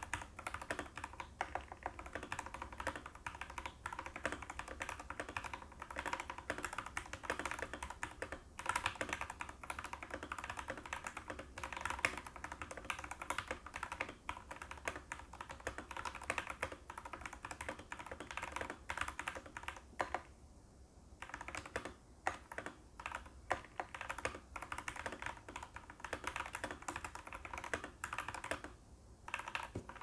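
Typing on an FL Esports FL980 mechanical keyboard with hand-lubed Gateron Pro Yellow linear switches (Krytox 205 and 105) and Cherry-profile doubleshot PBT keycaps: a dense, fast run of keystroke clacks, thinning to scattered single presses about two-thirds of the way through and again near the end.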